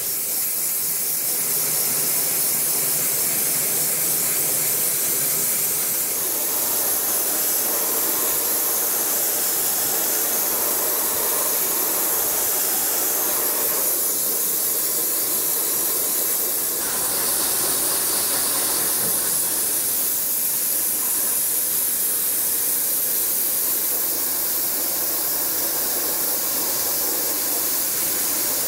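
Dry ice blasting gun blasting a car's wheel well: a loud, steady hiss of compressed air and dry ice pellets, run at a raised pressure and a larger pellet size. The hiss changes in tone a few times, about 6, 14 and 17 seconds in.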